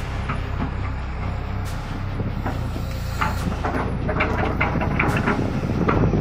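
Hydraulic excavator's diesel engine running steadily under work, with a run of short clicks and knocks in the second half.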